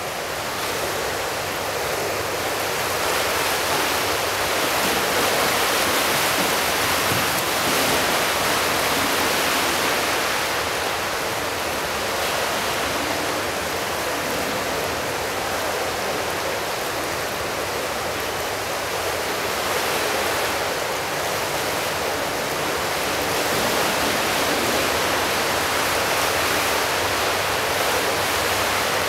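Steady rushing, water-like noise with slow gentle swells: the echoing ambience of an indoor swimming pool.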